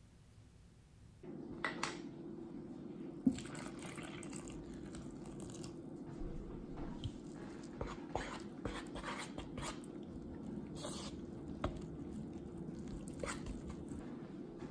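A metal utensil stirring flour, water and sourdough starter in a plastic bowl, starting about a second in: wet, sticky mixing with scrapes and clicks against the bowl. A steady low hum sits underneath.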